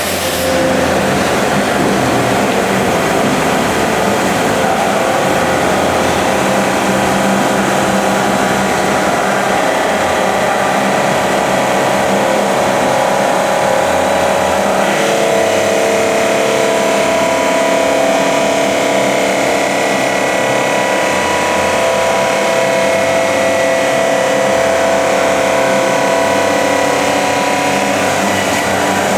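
Diamond saw blade cutting through a Dekton slab at a feed of 3.8 m/min: a loud, steady machine whine, whose tones shift about halfway through.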